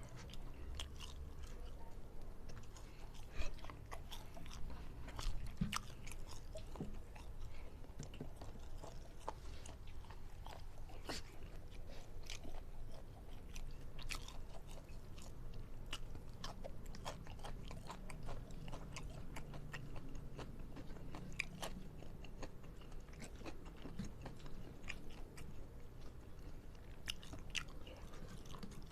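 A person chewing and biting food close to the microphone: irregular wet clicks and crunches of a mouthful being chewed, with a few louder crunches about three to six seconds in.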